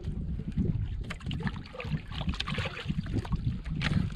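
Sea water sloshing and splashing around a small outrigger boat as a fish is hauled up by handline and lifted from the water. Wind rumbles on the microphone, and there are scattered knocks and clicks of line and hands on the boat.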